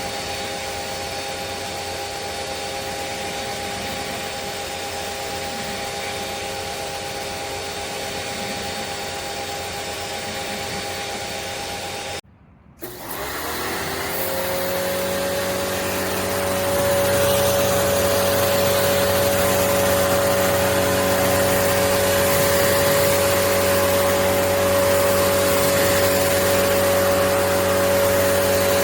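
Pressure washer running steadily. About twelve seconds in it cuts out for a moment, then the motor spins back up with a rising whine and settles into a louder, steady hum.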